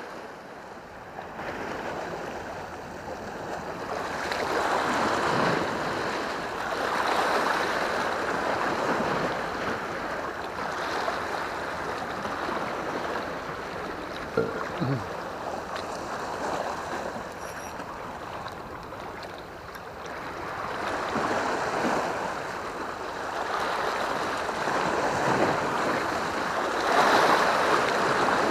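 Sea waves washing and breaking over rocks at the foot of a seawall, swelling and ebbing every few seconds. A single small knock sounds about halfway through.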